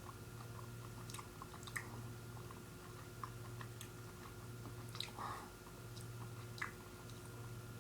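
Faint chewing of a firm gummy fruit snack, with small mouth clicks and smacks scattered through.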